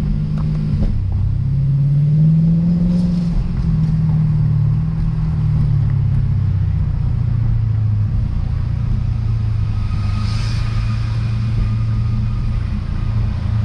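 Lexus RC F's 5.0-litre V8 running at low revs under light throttle, its pitch rising about two seconds in and then settling into a steady drone, over tyres rumbling on cobblestones.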